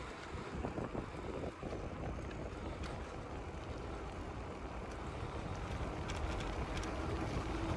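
Wind rushing over the microphone and low rolling rumble of a bicycle riding along a concrete trail, growing gradually louder. A faint steady hum comes in near the end.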